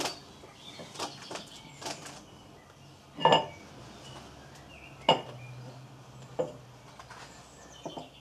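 Scattered sharp metallic clinks of steel flywheel bolts knocking against the flywheel as they are handled and started by hand. The loudest clink, about three seconds in, rings briefly.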